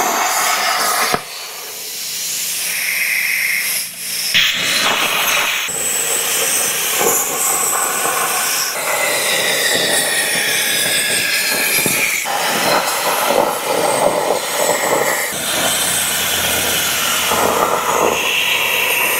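CNC plasma cutter's torch cutting quarter-inch steel plate: a loud, steady hiss of the plasma arc and its air stream, changing abruptly several times.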